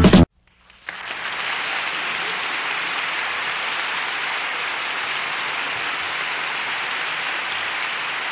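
Music stops abruptly, and after a brief gap a crowd's applause swells in over about a second, then carries on steadily.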